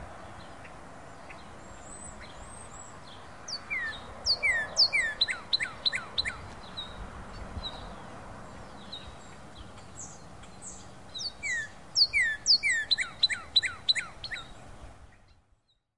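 Northern cardinal singing two phrases, each a quick run of loud downslurred whistles, one about four seconds in and another near twelve seconds. Faint high chips are heard between the phrases.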